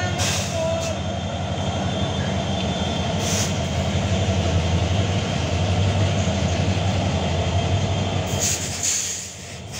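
Several CC205 diesel locomotives heading a Babaranjang coal train, passing close by with their engines running in a steady low rumble. About nine seconds in, the sound drops as the last locomotive goes past and the wagons follow.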